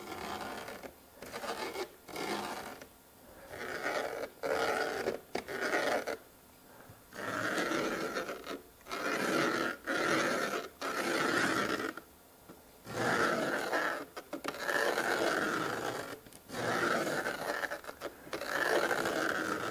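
Rollerball pen scraping along the edge of Märklin C-track and over an XPS polystyrene foam strip as the track outline is traced. It comes as a series of strokes about a second long each, with short pauses between them.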